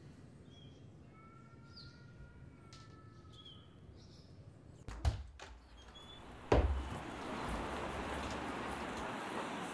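Faint bird chirps, then two sharp thuds about a second and a half apart as a front door is opened, followed by a steady hiss of noise.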